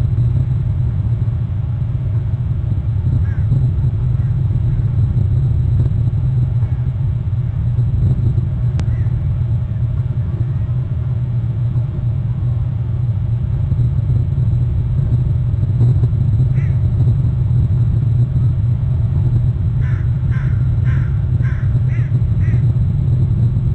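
A steady low rumble on the outdoor nest-camera microphone, with a bird calling about six times in quick succession near the end.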